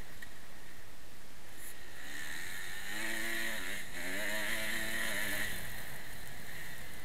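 Motocross bike engine heard through a helmet camera under steady wind noise, its pitch rising and falling as the throttle is worked from about three seconds in for a couple of seconds.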